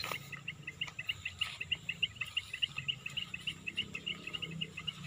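A rapid, even series of short high chirps from a small animal, about seven a second, stopping about four seconds in.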